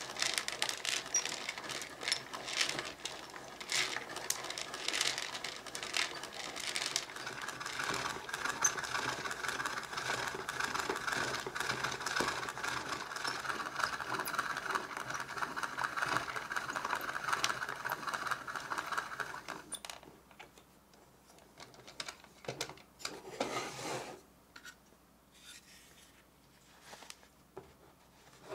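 Hand-cranked plastic toy popcorn maker being turned: its plastic crank and gears click and rattle continuously while the popcorn tumbles in the drum. The cranking stops about two-thirds of the way through, followed by a few plastic knocks and light handling of the lid.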